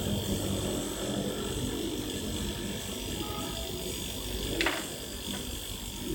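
Salvaged refrigerator compressor running with a steady low hum while pumping air into a bicycle tyre. A short sharp click comes about four and a half seconds in.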